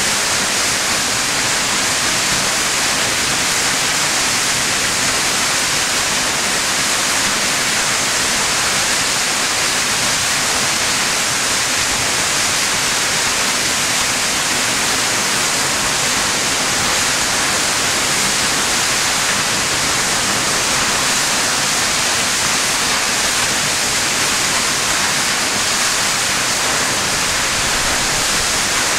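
Steady, loud rush of water from South Falls, a 177-foot waterfall, an even hiss that does not change.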